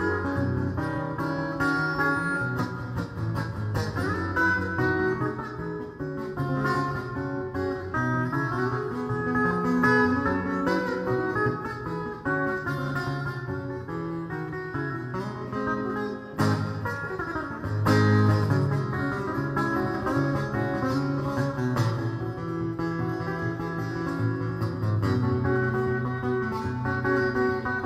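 Crafter SA acoustic-electric guitar played solo fingerstyle: a busy picked melody over bass notes, with one sharp percussive hit a little past the middle.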